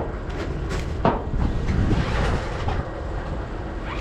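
Vehicle engine running with a steady low rumble, with a sharp clunk about a second in.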